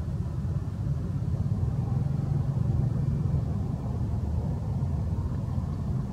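A steady low rumble with no distinct events, a little stronger in the middle.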